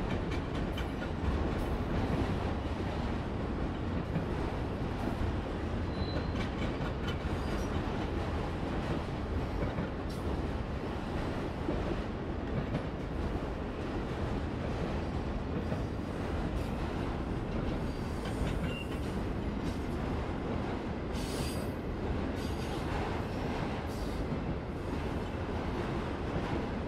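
Freight train of autorack and double-stack container cars rolling past: a steady rumble of steel wheels on rail, with a few brief high wheel squeals.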